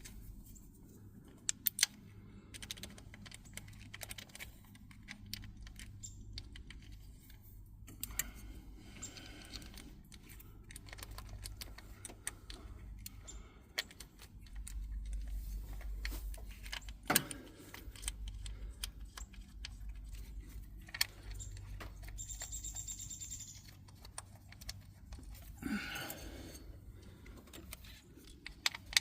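Scattered small metal clinks and rattles of screws and tools being handled while the ignition-coil hold-down screws are put back in.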